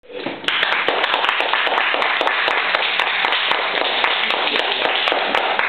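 A small audience clapping steadily, starting about half a second in and dying away at the end.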